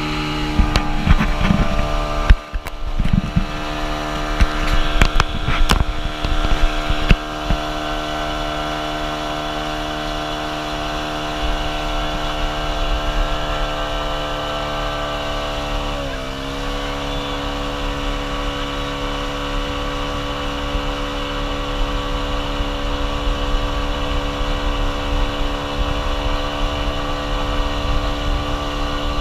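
Motorboat engine running at a steady pitch, with sharp knocks and thumps over the first several seconds. About sixteen seconds in the engine note dips briefly, then comes back up and holds steady.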